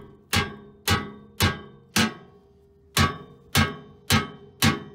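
Hammer blows on the RV's steel frame crossmember, knocking it back into position before welding: eight sharp strikes about half a second apart, four, a short pause, then four more, each leaving a brief metallic ring.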